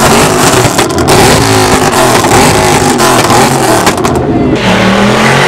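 Mercedes-AMG sedan's engine revved hard while the car stands still, loud throughout, with a few sharp pops and the revs climbing again near the end.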